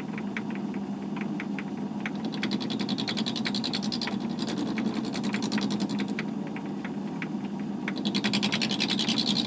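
Myford lathe turning a brass hex bar in its chuck: a steady motor hum with about three light ticks a second. The tool cuts the hex corners into a taper twice, from about two to six seconds in and again near the end, each cut a rapid, high-pitched rattle.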